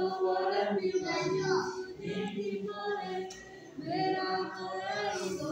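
Voices singing a church hymn in long, held notes.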